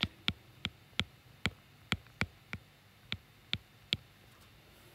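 Stylus tip tapping on a tablet's glass screen during handwriting: about a dozen clicks at uneven intervals, stopping about four seconds in.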